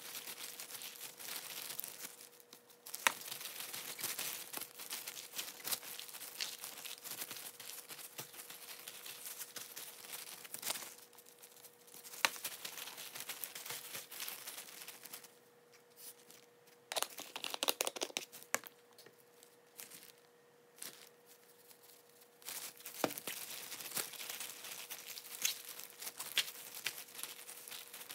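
Thin plastic food-prep gloves crinkling and rustling as hands rub seasoning into raw chicken pieces, with scattered light clicks and taps and a couple of short pauses midway.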